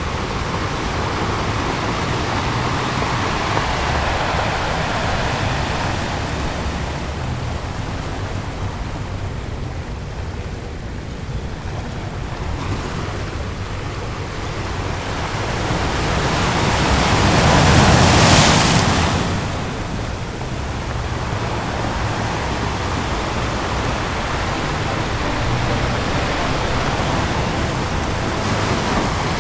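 Ocean waves breaking on a shore, a continuous wash of surf with one wave building to a loud crash about two-thirds of the way through and then receding.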